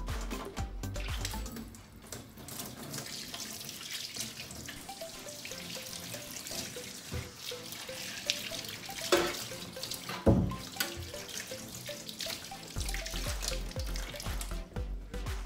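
Kitchen tap running into a stainless steel sink, the water splashing over onions held under the stream. Two sharp knocks about nine and ten seconds in.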